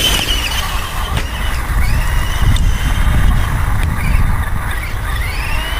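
Brushed electric motor and drivetrain of a Traxxas Stampede 4x4 RC monster truck whining, rising and falling in pitch as the throttle is worked, over a heavy rumble of wind on the microphone.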